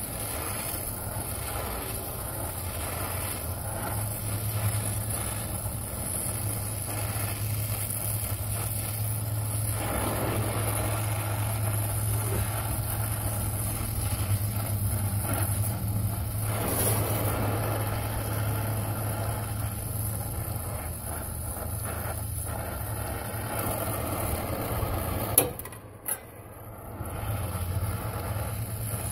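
Brazing torch flame running steadily, with a low rumble and hiss, as a copper refrigerant line is brazed onto a compressor stub. A sharp pop comes about 25 seconds in, the sound briefly dips, then the steady rumble resumes.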